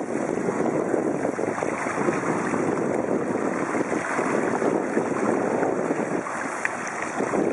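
Wind buffeting the microphone of a compact camera mounted on a moving bicycle, a harsh, constant rushing noise, mixed with the wash of the tyres rolling through shallow floodwater.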